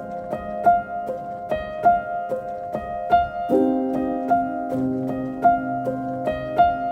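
Background music: a light piano or keyboard melody of quick, evenly paced notes over held lower notes.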